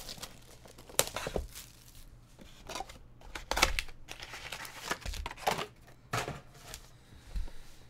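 Trading-card pack wrappers crinkling and tearing as packs are opened by hand, in a string of short, irregular rustles and crackles.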